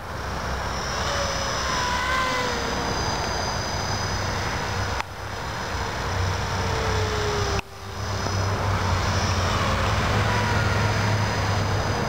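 E-sky CP3 RC collective-pitch helicopter in flight, its high-speed brushless main motor whining and rotor blades running. The pitch of the whine drifts up and down as the helicopter manoeuvres, and the sound dips sharply twice.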